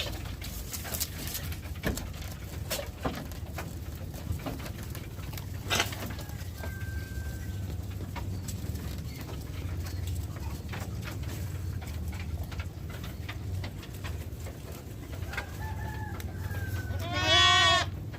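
A goat bleats loudly once near the end, a short wavering call. A fainter call comes a little before it, over a steady low hum and scattered knocks.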